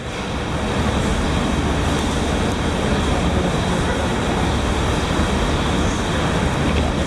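Steady, loud machine-like rumble and hiss with faint steady high tones, unchanging throughout.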